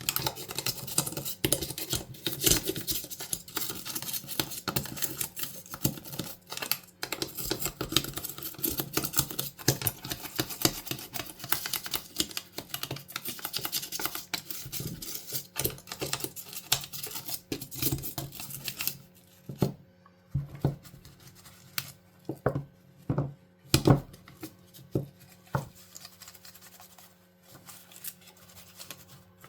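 A toothbrush scrubbing the inside of a plastic game-controller case half with a rapid, continuous scratchy rustle. About two-thirds of the way through the scrubbing stops, leaving scattered knocks and taps of the plastic case being handled.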